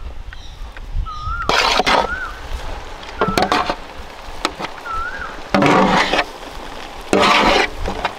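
Long metal ladle scraping mashed potato and peas off a large steel plate into a kadai, in four rough scraping bursts, the last two the loudest.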